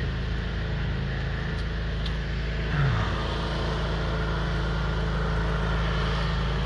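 Steady low engine drone, with a brief falling tone about three seconds in.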